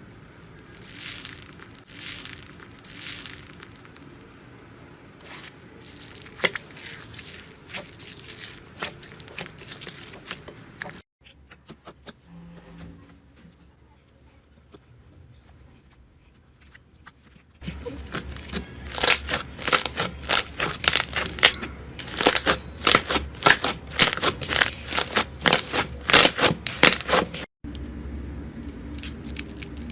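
Slime being squeezed, stretched and poked by hands, giving crackling, popping and tearing sounds. It comes in several short clips: a quiet stretch in the middle, then fast, dense popping in the second half.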